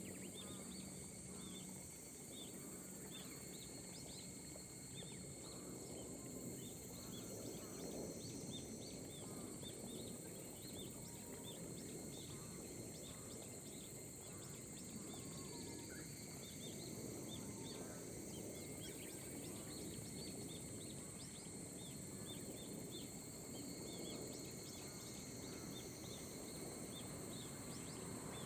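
Gentle rain over terraced rice paddies, a faint steady hiss, with birds giving many short high chirps, several each second.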